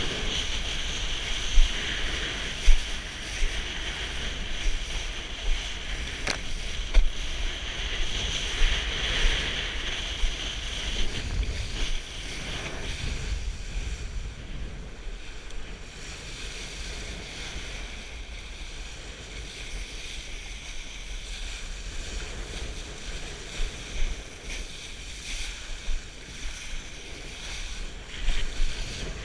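Wind buffeting the microphone and water spray hissing as a kiteboard planes fast across choppy water, with occasional sharp knocks from the board hitting the chop. The hiss eases about twelve seconds in.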